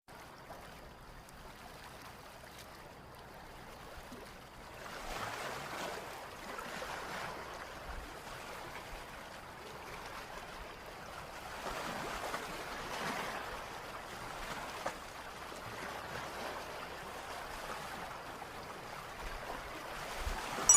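Small sea waves washing up and drawing back over a pebble beach, a hiss that swells and fades several times.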